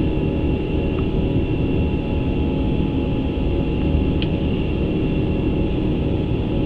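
Airbus A350 flight deck in the climb after takeoff: a steady rumble of airflow and aircraft systems with faint steady whining tones. There is one short click about four seconds in.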